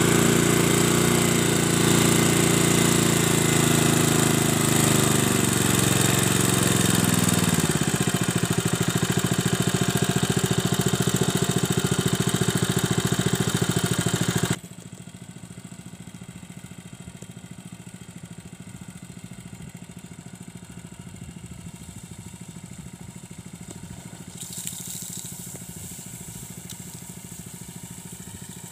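Honda WB30XN petrol engine water pump running. Its engine pitch falls over the first several seconds as it settles, then it runs steadily. About halfway through it suddenly sounds much fainter but keeps running.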